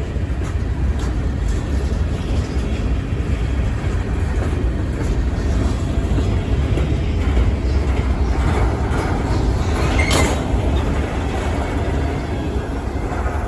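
CSX local freight train rolling past with a steady low rumble and faint wheel clicks. One brief sharp sound comes about ten seconds in.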